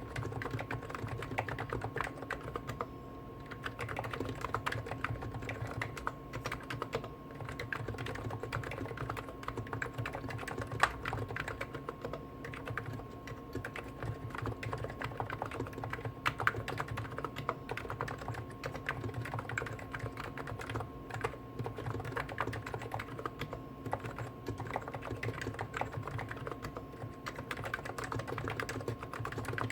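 Continuous fast typing on two Hansung GTune electro-capacitive (Topre-style) keyboards at once, a CHF4 Snow White with 50 g switches and a CHF7 OfficeMaster with 55 g switches: a dense, unbroken patter of key strikes. A faint steady hum lies underneath.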